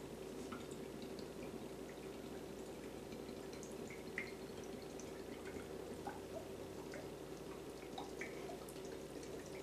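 Faint bubbling and dripping of dyed water draining through a tornado-in-a-tube connector from the upper plastic bottle into the lower one, with air bubbling its way up through a layer of lamp oil: a scatter of small irregular blips over a steady faint hum.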